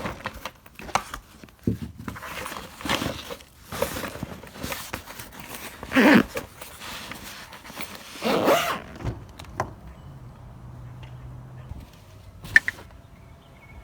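Irregular handling noise: rustling, clicks and knocks, with two louder brief sounds about six and eight and a half seconds in.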